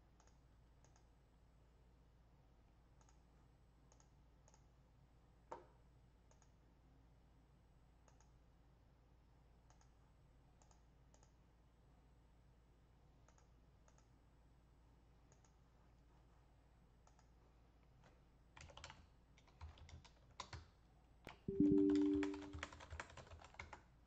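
Computer keyboard and mouse clicks: scattered single clicks at first, then a quick run of typing near the end. A brief low two-note tone sounds with the loudest keystrokes.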